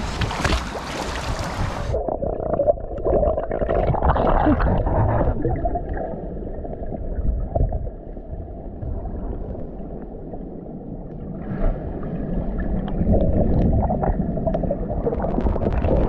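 Splashing as a mask-mounted action camera goes into creek water, then the muffled underwater sound of a snorkeler swimming: a dull low rumble with gurgling and bubbling. It brightens again near the end as the camera comes back up to the surface.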